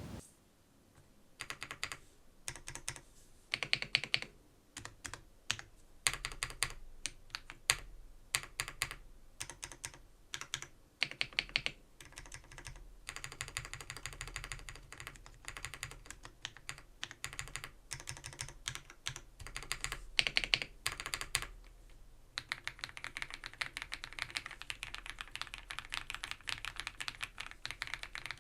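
ABKO AK100 mechanical keyboard with non-clicky Baby White switches being typed on as a sound test. It begins with scattered keystrokes and short flurries, and becomes steady, fast typing about 22 seconds in.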